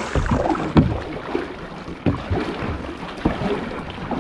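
Kayak paddling: a double-bladed paddle dipping and splashing in the water close to the hull, with sharper splashes about every second or so.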